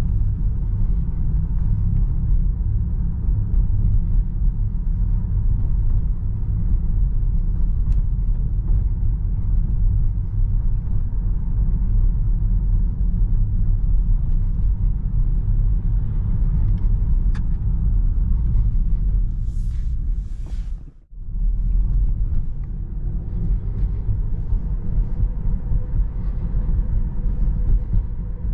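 Road and tyre rumble heard inside the cabin of a Tesla Model 3 electric car driving along a city street, a steady low rumble with no engine note. About two-thirds of the way through come two short hisses and a brief drop almost to quiet before the rumble resumes.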